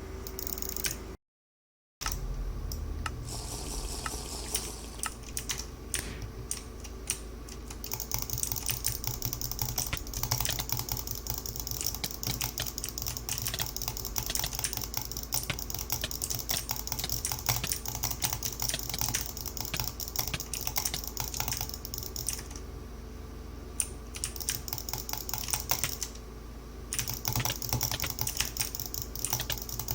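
Rapid, irregular typing on a computer keyboard, key clicks following each other continuously, with a brief total dropout of the sound about a second in.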